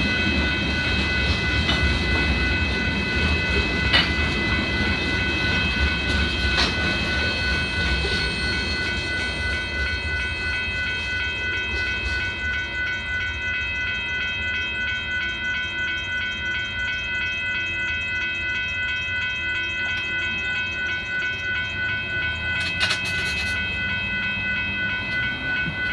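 The last cars of a Union Pacific gravel train rolling past with some clickety-clack. A railroad crossing bell rings steadily over them. The train noise fades within the first eight seconds or so, leaving the bell ringing on its own.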